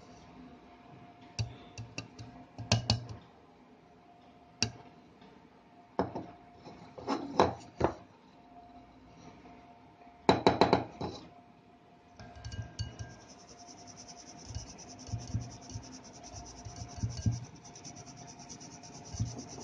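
A small glass rubbed and pressed around inside a stainless-steel mesh strainer to force homemade Horlicks powder through, giving scattered scrapes, clinks and knocks, loudest about ten seconds in. After that the strainer is shaken over a glass bowl: a steady fine hiss of powder sifting through the mesh, with soft repeated taps.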